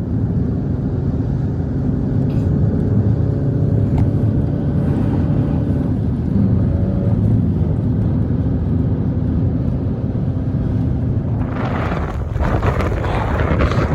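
A vehicle engine running with a steady low drone; near the end a louder rushing noise joins it.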